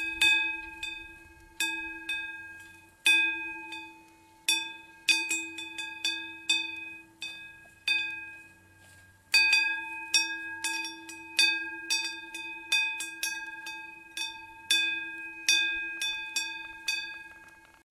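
A single cowbell clanking unevenly as a grazing cow moves its head, each clang ringing out and fading, about one to three a second. There is a pause of about a second and a half near the middle, and the clanking cuts off suddenly at the end.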